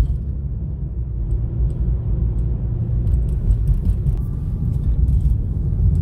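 Steady low rumble of a car's tyres and engine heard from inside the cabin while driving along a road.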